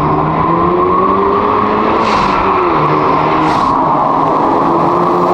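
2024 Hyundai Elantra N's turbocharged 2.0-litre four-cylinder, breathing through a titanium mid-pipe with the resonator deleted, running under acceleration with its pitch rising, dipping and rising again. Two short hissing rushes come about two and three and a half seconds in.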